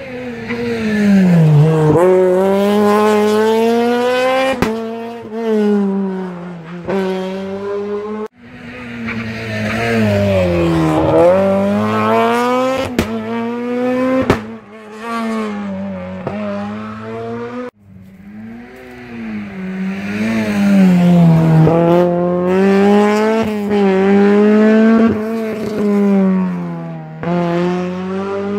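Rally car engines working hard on a stage, the engine note climbing and dropping again and again through gear changes as the cars brake for a bend and accelerate out, with sharp exhaust pops. The sound breaks off abruptly twice and picks up again, as one pass gives way to the next.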